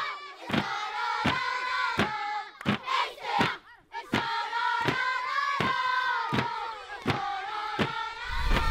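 A group of voices chanting together in long held notes over a steady sharp beat, about one stroke every three-quarters of a second. The singing breaks off briefly a little past the middle.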